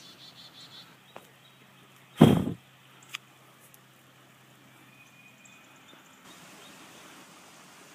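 A single loud, short thump about two seconds in, well above a quiet outdoor background. In the first second there is a quick run of high chirps, and a faint steady low hum runs underneath.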